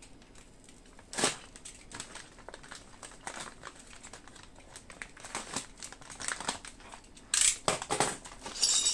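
Plastic packaging crinkling and rustling in irregular bursts, with small clicks and knocks, as parts of a wooden model ship kit are handled and unwrapped. The louder crinkles come about a second in and again near the end.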